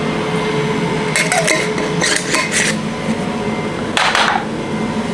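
Steady hum of a kitchen appliance, with three short bursts of handling noise from kitchenware about one, two and four seconds in.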